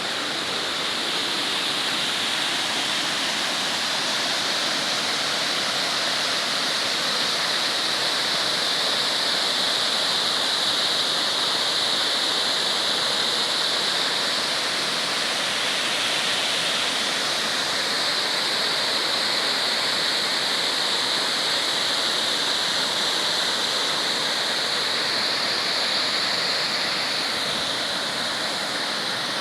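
Steady rush of a waterfall, water falling and splashing continuously with a bright, hissing tone.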